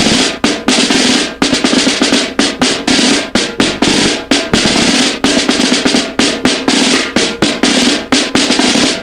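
Drumming: a rapid run of snare and drum hits, several strikes a second, keeping up without a break.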